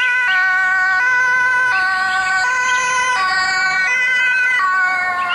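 Electronic two-tone ambulance siren, switching back and forth between a high and a low tone about every 0.7 seconds.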